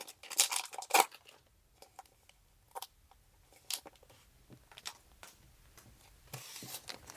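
Pokémon trading cards being handled and flicked through by hand: light clicks and taps of card against card, clustered in the first second and sparser after, with a brief rustle of cards or pack wrapper near the end.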